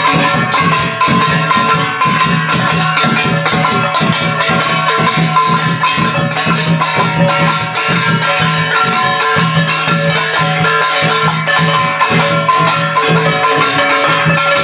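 Loud ritual music: fast, even rattling and shaking percussion over a steady pitched drone, without a break.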